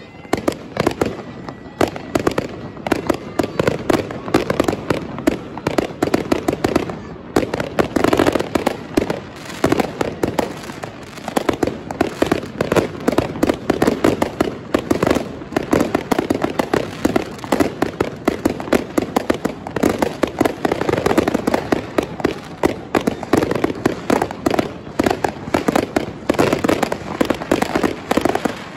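Fireworks and firecrackers going off in a dense, unbroken barrage: many bangs and crackles overlapping, several every second.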